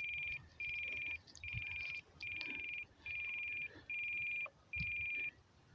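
RC radio transmitter alarm beeping: a high, buzzy electronic tone repeating about once a second, seven beeps, which stop a little past five seconds in.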